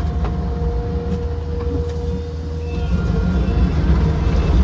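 Takeuchi skid steer's diesel engine running, a heavy steady rumble, with a thin steady whine over it that stops about three seconds in.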